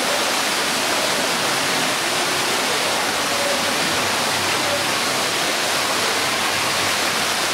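Steady rush and splash of water from pool fountain jets arcing into the water and a rocky cascade, an even hiss with no breaks.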